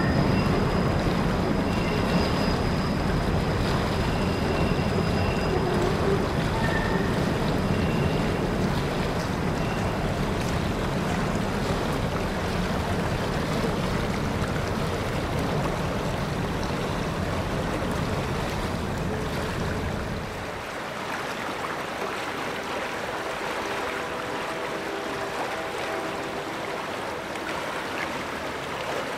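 Container freight cars rolling across a steel trestle bridge in a steady low rumble. About two-thirds of the way through the rumble cuts off, leaving the even rush of flowing creek water.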